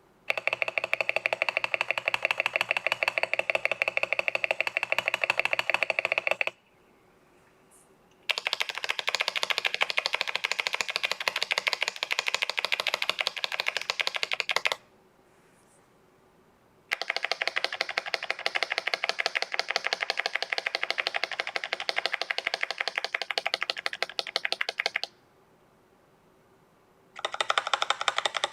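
Mechanical keyboard fitted with lubed Akko Jelly Purple tactile switches, XDA keycaps, a tape mod and polyfill, its keys pressed rapidly. The clicks come in four long runs separated by short pauses, each run a little different in tone.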